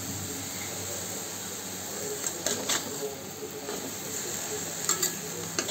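Pumpkin leaves frying in oil in a metal pan with a steady sizzle, and a metal spatula scraping and clicking against the pan several times from about two seconds in.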